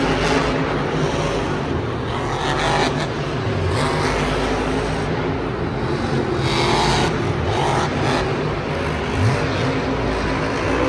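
Monster truck engine running with a steady low drone, surging briefly a few times.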